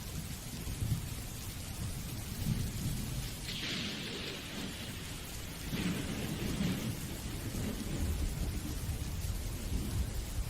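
Rain falling, with a low rolling rumble underneath and two short surges of brighter hiss about four and six seconds in.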